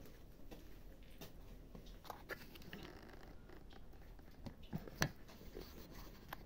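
Several cats eating: faint chewing and crunching with scattered small clicks, and one sharper click about five seconds in.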